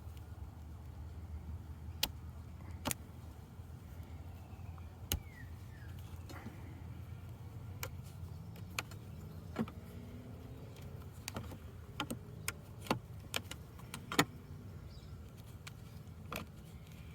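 Scattered sharp clicks and taps, about fifteen at uneven intervals, over a low steady rumble.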